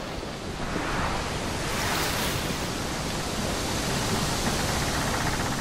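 A steady surf-like rushing noise that swells up about a second in and then holds.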